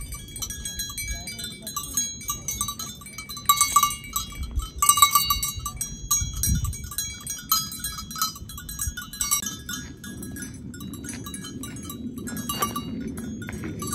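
Bells on grazing livestock clanking irregularly, a jumble of ringing metallic clinks, busiest and loudest about four seconds in.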